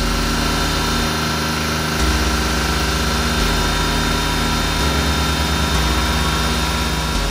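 Exhaust of a 1993 Suzuki Every's 660cc three-cylinder engine idling steadily, heard at the tailpipe.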